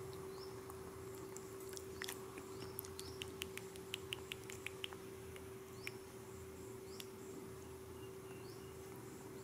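Faint room sound with a steady low hum. About two seconds in comes a quick run of sharp chirping clicks, about four a second, with a few small high chirps scattered through.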